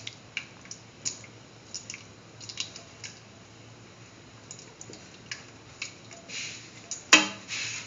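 Spatula stirring a thick mix of vermicelli, chayote and coconut milk in a pan: soft wet squishing with scattered light clicks of the spatula on the pan, and a sharper knock near the end.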